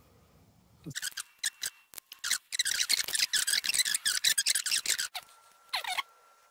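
Outside micrometer being turned down onto a telescopic gauge: rapid metallic clicking and ticking from about a second in until near the end, followed by a brief squeak of metal on metal.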